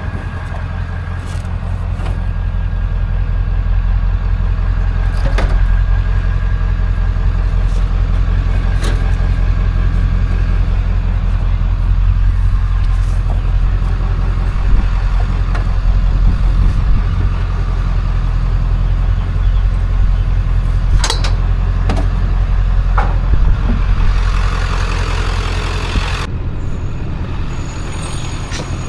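Vehicle driving: a steady low engine and road rumble, with a few sharp rattles or clicks and a brief hiss about 24 seconds in.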